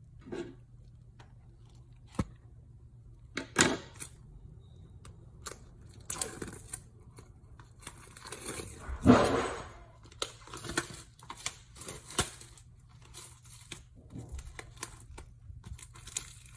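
Hands tearing open and crinkling the plastic wrapping of a K-pop album, with scattered clicks and rustles of handling. The longest and loudest tear comes a little past halfway.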